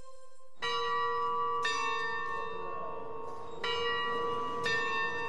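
A large bell struck four times, in two pairs about a second apart, each stroke ringing on into the next.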